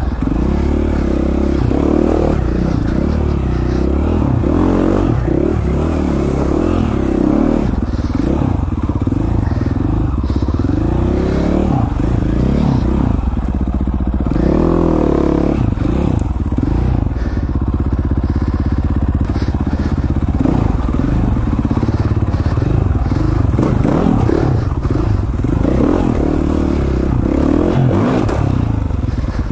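Dirt bike engine running under load, its revs rising and falling as the throttle is worked.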